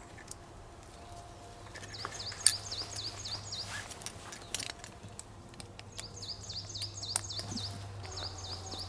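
A small songbird singing two phrases of quick, repeated high chirps, about four a second, with a few sharp clicks and rustles from belt and knife-sheath gear being handled; the loudest click comes about two and a half seconds in.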